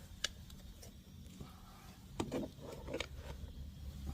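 A few faint clicks and light knocks of tools and parts being handled during work on a car's engine, over a low background rumble.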